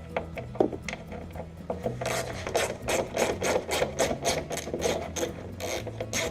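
A T25 Torx bit on a hand driver backing out a tail light screw. Scattered clicks at first, then from about two seconds in a fast, rasping, ratchet-like clicking at about five strokes a second.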